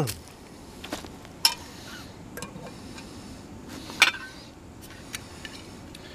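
Stainless steel canteen cup and its lid handled on a small gas canister stove: a few light metal clinks and knocks, the loudest about four seconds in.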